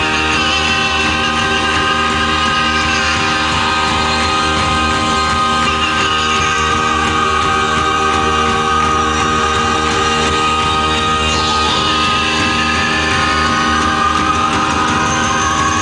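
Loud live electronic music: dense, sustained layered synthesizer tones with sliding pitch sweeps, one falling about two-thirds of the way through and one rising near the end.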